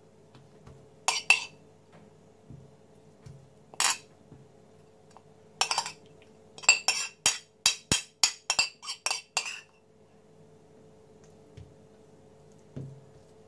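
Metal utensil clinking against a porcelain plate while knocking crumbled cheese-and-dill filling off it: a few separate clinks, then a quick run of about a dozen taps in the middle, about four a second.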